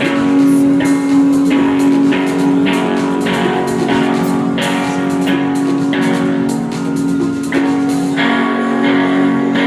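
Guitar strummed in a steady rhythm of about two strokes a second, holding a ringing chord.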